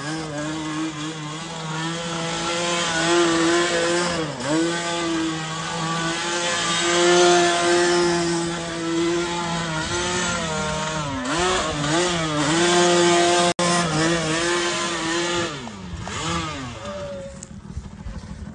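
Yamaha quad bike's engine revving hard, its pitch rising and falling over and over as the throttle is worked, with a few brief drops in revs, then easing off to a lower, rougher note near the end.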